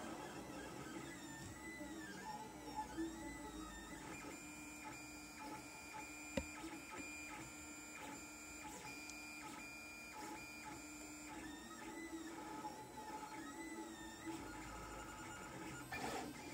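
Lulzbot TAZ 3 3D printer at work, its stepper motors whining in repeated rising-and-falling sweeps of pitch, with a stretch of steadier tones and faint regular ticks in the middle. A single sharp click comes about six seconds in.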